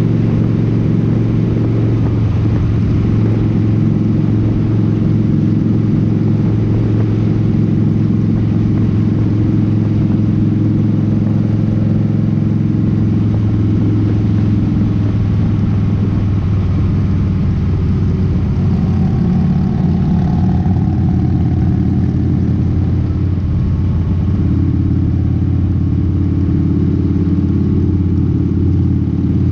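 Cruiser motorcycle engine running steadily at road speed, a continuous low drone over wind and road noise, its note shifting slightly about halfway through and again near the end.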